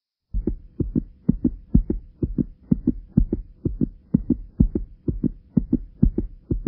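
Heartbeat sound effect: paired lub-dub thumps repeating steadily at about two beats a second, a fast pulse. It begins about a third of a second in.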